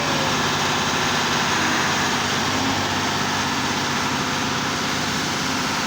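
Heavy engine of a road-construction machine running steadily at an even pitch.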